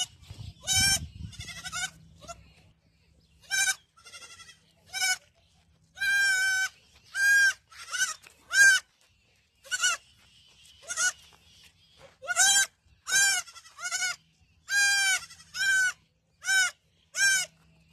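Goat kid bleating over and over, about eighteen short high-pitched calls coming roughly once a second after a brief pause near the start.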